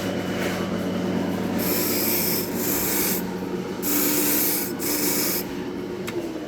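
Key-cutting machine running with a steady motor hum, its cutter grinding into a key blank in four short passes of about a second or less each.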